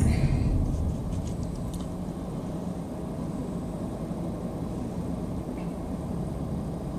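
Nissan Sentra's four-cylinder engine heard from inside the cabin: its sound drops over the first second as the car comes to a stop, then settles into a steady low idle.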